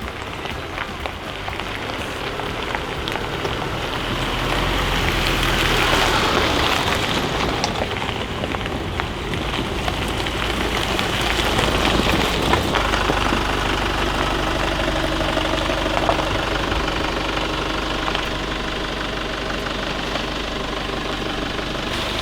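Chevrolet Colorado ZR2 pickup driving on a gravel forest road: the engine runs steadily under a dense crackle of tyres on gravel, louder from about four seconds in.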